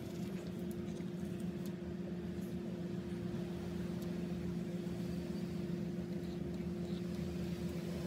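Steady low machine hum holding two unchanging tones, with a few faint clicks over it.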